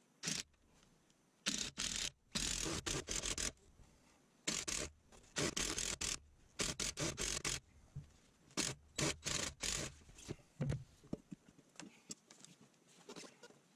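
Rubber car tyre scraping and rubbing against the top of a wooden chopping block as it is worked loose and lifted off, in a series of short scraping bursts over the first ten seconds.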